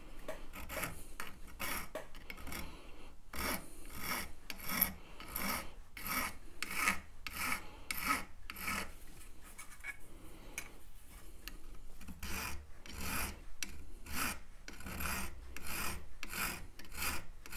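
Small hand file rasping across the end of a thin copper strip in short, even strokes, about two a second, straightening the edge so the ring's solder joint will close cleanly.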